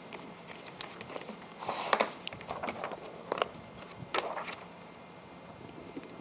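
Scattered small clicks, knocks and rustles in a quiet room, the loudest a short rustle about two seconds in and another about four seconds in.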